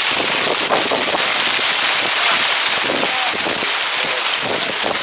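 Heavy rain shower pouring down: a loud, steady hiss of rain on wet ground and water, with a few louder splats of nearby drops.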